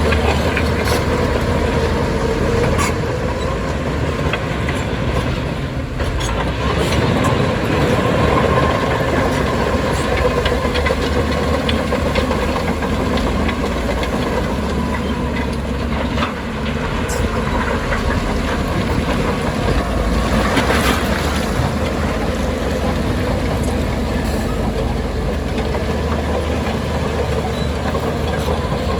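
Heavy diesel earthmoving machinery running steadily under load, with scattered metallic clanks and knocks.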